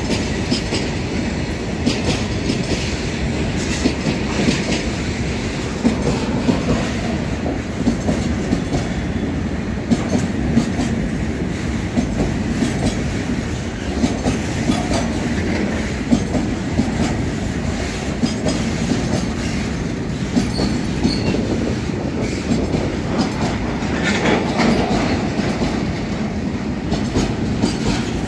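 Oil tank wagons of a freight train rolling past close by at speed: a steady rumble with repeated clickety-clack as the wheels cross rail joints.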